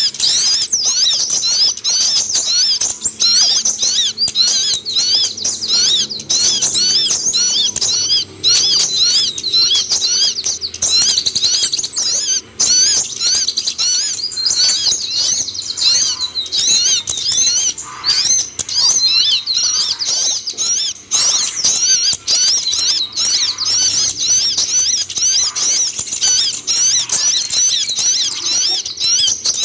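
Van Hasselt's sunbird (kolibri ninja) singing a continuous, rapid, high-pitched twittering song of quick chirps and short slurred notes.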